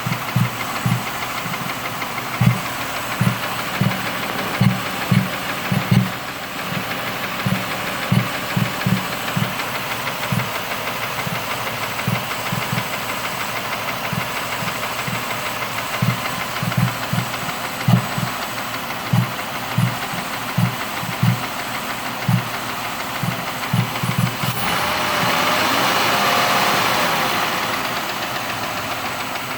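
2005 Mercury Mariner's 3.0 L V6 idling with a knock near the top end, and irregular pops of varying strength one to three times a second, which the owner hears as random popping inside the air box and intake; the engine is also throwing lean codes on both banks. A louder rushing sound swells for a few seconds near the end.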